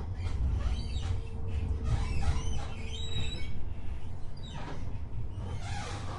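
Amsterdam tram running, heard from inside the car: a steady low rumble with frequent short, high squeaks and gliding squeals. A steady whine sounds from about a second in for roughly two seconds.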